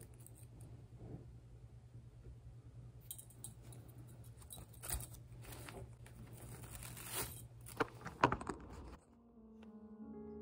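Small metal rings clinking and a sheer organza pouch rustling and crinkling as jewelry is handled and bagged, with a few sharper clicks toward the end over a steady low hum. Piano music starts near the end.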